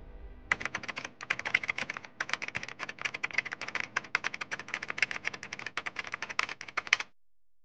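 Typing sound effect: a rapid, uneven run of keyboard keystroke clicks that starts about half a second in and stops suddenly near the end.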